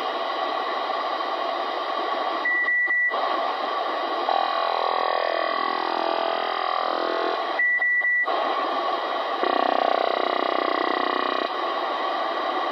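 An unidentified signal received on a Ranger RCI-2950DX ten-meter radio and heard through its speaker as continuous hiss with a fine, even texture. It grows stronger twice, and two short steady beeps about five seconds apart cut through it. The uploader wonders whether it is over-the-horizon radar.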